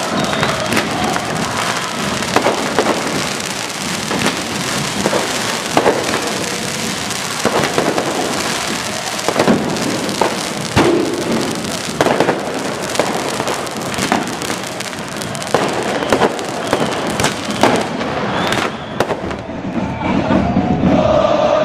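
Fireworks and firecrackers going off in a dense, irregular volley of bangs over a continuous crackling hiss of pyrotechnics. Near the end this gives way to a crowd chanting.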